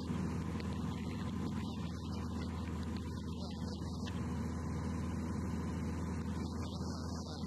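Steady drone of a light aircraft's piston engine and propeller in flight, heard from inside the cockpit, with a hiss over it.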